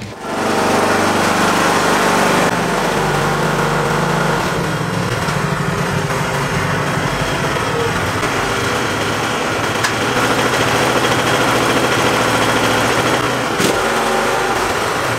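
Ride-on lawn tractor engine running at a steady speed, with a slight shift in its pitch about two and a half seconds in.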